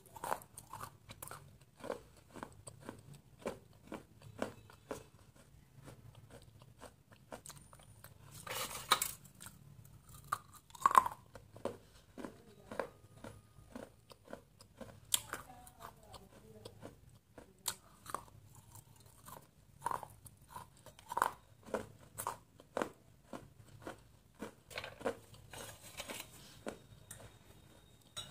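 Close-up biting and chewing of water-soaked terracotta clay pieces, which are very soft: a string of irregular crunches, the loudest about nine and eleven seconds in.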